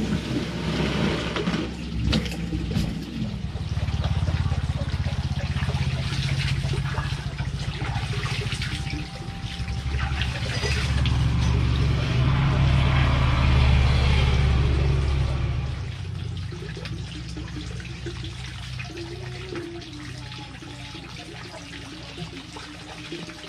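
Water running from an outdoor hose and splashing while someone washes under it. It swells through the middle and eases off near the end.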